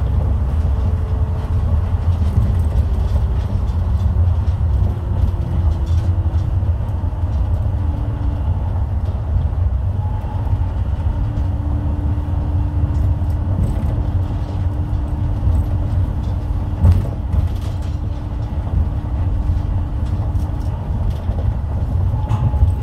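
Osaka Metro New Tram rubber-tyred automated train running on its guideway, heard from inside the front car: a steady low rumble with a motor whine that falls in pitch over the first several seconds, holds steady, then drops away near the end. There is a single knock about 17 seconds in.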